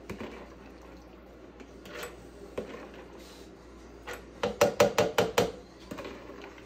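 A metal spoon scooping and clinking in a plastic tub of water-soaked kibble. Then, about two thirds of the way in, a quick run of about six sharp taps as the spoon knocks mush off against the rim of a plastic Ninja blender jar.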